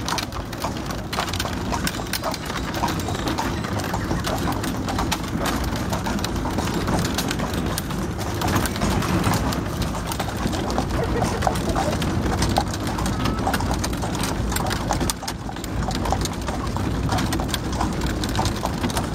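A harness horse's hooves clip-clopping on a sealed road as it pulls a hundred-year-old buggy, over a steady rumble of the buggy's wheels on the road.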